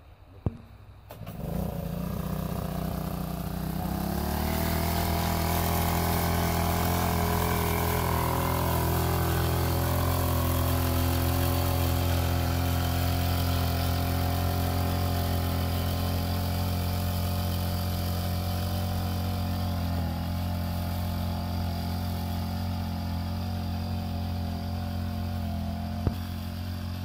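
Backpack motorized mist-blower sprayer's small two-stroke engine starting about a second in, rising in pitch as it is throttled up a few seconds later, then running steadily at high speed as it blows spray.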